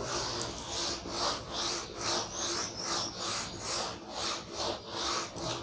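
A handheld duster rubbed back and forth on a whiteboard, erasing marker writing in regular strokes of about three a second.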